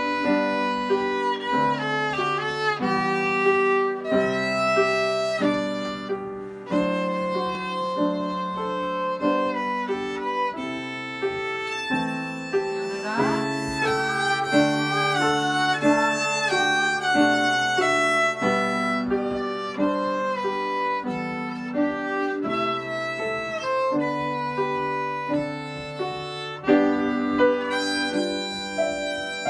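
Violin played with the bow, a young player reading a lyrical melody from sheet music, one note flowing into the next.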